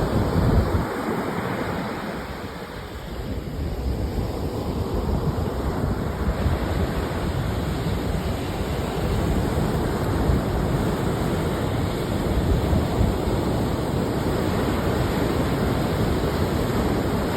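Ocean surf washing on the shore, mixed with wind buffeting the microphone: a steady rush of noise that starts abruptly and holds even.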